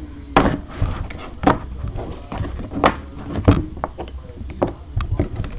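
Rigid plastic trading-card holders (top loaders) clicking and knocking against each other and the table as they are handled and stacked, with irregular sharp knocks about once a second.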